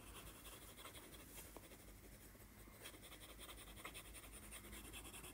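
Faint scratching of a stylus tip rubbing back and forth on an iPad's glass screen, the stylus held tilted sideways to shade.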